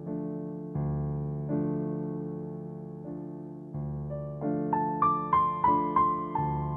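Gentle background piano music: soft chords struck about once a second, each fading away, then a quick run of about six higher notes midway through before the chords return.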